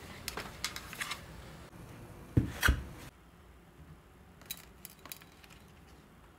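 Kitchen handling sounds: a few light clicks, then two loud knocks close together a little over two seconds in. After that come faint taps as baked cookies are lifted off a metal baking tray onto a wire cooling rack.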